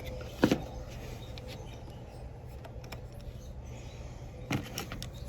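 A few sharp metallic clicks and knocks, one about half a second in and a quick cluster near the end: a wrench and battery-cable hardware being handled while the cables are taken off a side-post car battery. A steady low hum runs underneath.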